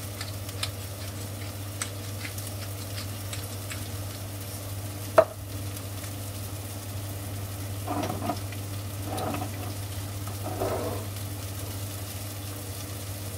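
Sliced onions sizzling steadily as they fry in a pan on their way to browning, with light ticks as pepper is ground over them at the start. One sharp knock about five seconds in, and a few short muffled sounds near the end.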